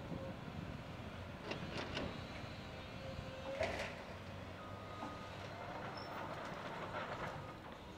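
Komatsu PC200 excavator's diesel engine running under a steady hum as it dumps a bucket of demolition debris into a dump trailer. Broken chunks clatter into the trailer in a few sharp knocks about a second and a half in, with a louder bang at about three and a half seconds.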